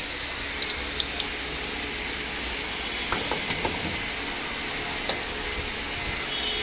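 Light clicks and taps from hands and tools working on car interior trim, a quick cluster about a second in and a run of softer ticks a little past halfway, over a steady hiss.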